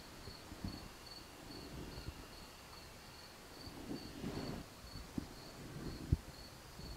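A cricket chirping steadily, about two chirps a second. Soft knocks come from the clothespin-clamped epaulette pieces being handled and set down on the table, the sharpest about six seconds in.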